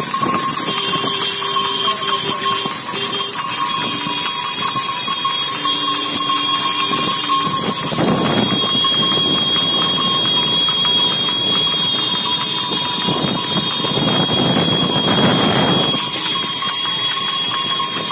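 Steady rush of wind and road noise on the microphone while moving at speed beside a horse pulling a two-wheeled racing cart, with the horse's hooves and the cart's wheels on asphalt. The noise swells about eight seconds in and again about fourteen seconds in.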